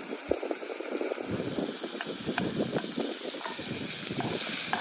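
Chicken cooking over heat: a steady hiss with scattered small clicks and crackles.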